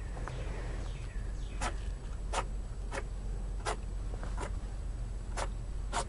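Pet rabbit sneezing repeatedly: about seven short, sharp sneezes, each under a second apart.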